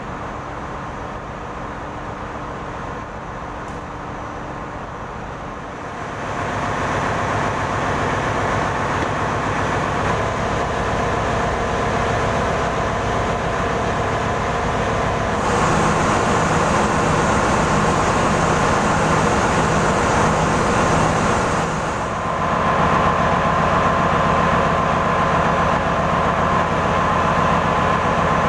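Steady din of a ship's engine-room machinery running, growing louder about six seconds in, with a steady high whine over the rumble in the last few seconds.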